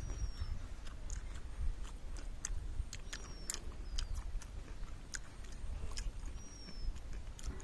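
Close-up chewing and crunching of crisp fried street snacks (pani puri or aalu nimki), with many small irregular crackles. A few short, high, falling chirps sound over it.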